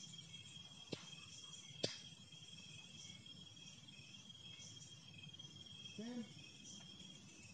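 Night insects, crickets, keeping up a steady high-pitched trill. Two sharp clicks come about one and two seconds in, and a brief low voice-like sound about six seconds in.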